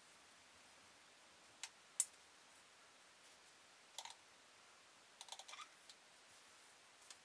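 Near silence: room tone broken by a few faint, sharp clicks, the loudest about two seconds in, with a quick run of several clicks about five seconds in.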